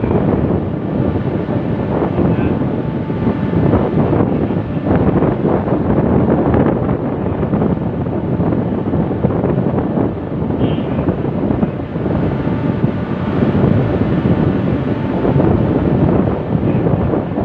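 Wind buffeting the microphone: a loud, steady rumble that swells and eases a little.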